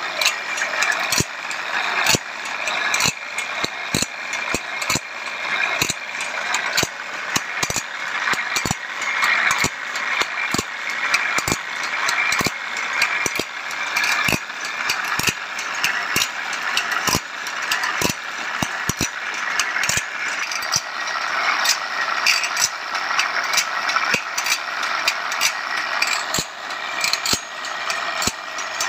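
Automatic band saw blade sharpening machine running: a small abrasive wheel grinding the steel teeth of a band saw blade with a steady gritty hiss, and a sharp click roughly twice a second as the machine steps the blade on tooth by tooth.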